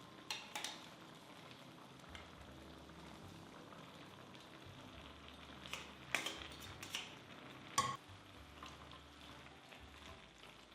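Food sizzling steadily in a frying pan, broken by several sharp clicks and knocks of a utensil against the pan; the loudest knock comes about eight seconds in.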